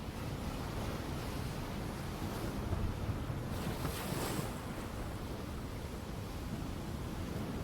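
Ocean surf: a steady low rumble of waves, with one wave breaking and washing in as a louder hiss about four seconds in.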